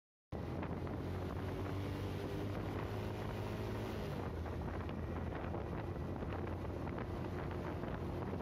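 Wind buffeting the microphone of a camera worn by a motorcycle rider on the move, over the steady low drone of the motorcycle and the road. It cuts in just after a moment of dead silence at the start.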